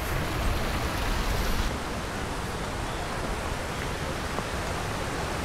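Steady rushing of a mountain stream over rocks, with wind buffeting the microphone through the first couple of seconds.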